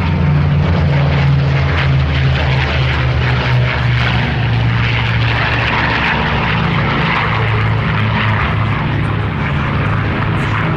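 Piston-engined Second World War fighters flying past: a Republic P-47D Thunderbolt's 18-cylinder radial and two P-51D Mustangs' Merlin V12s. A loud, steady engine drone of several aircraft together.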